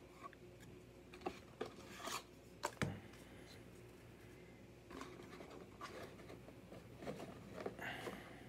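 Baseball trading cards being flipped and slid against each other by hand, with soft card clicks and a sharper knock a little under three seconds in, then a faint rustle.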